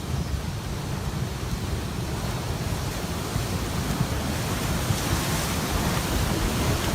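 Floodwater rushing in a steady, unbroken torrent, heaviest in the low end.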